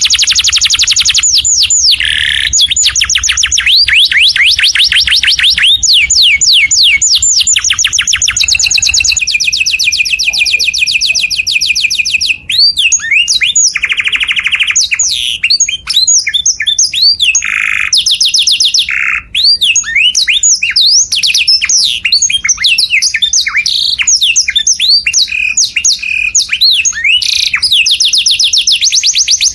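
Canary singing a loud, continuous song of rapid trills, each phrase a fast run of repeated notes. About halfway through it shifts to more varied, slower swooping notes with brief gaps.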